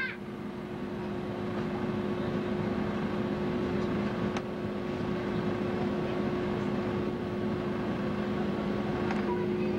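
Steady engine drone: two held low tones over an even rushing noise, without change.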